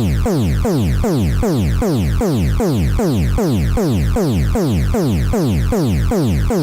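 Electronic emergency alert alarm tone: a rich, buzzy tone sweeping rapidly downward in pitch and restarting, about three falling sweeps a second, loud and unbroken.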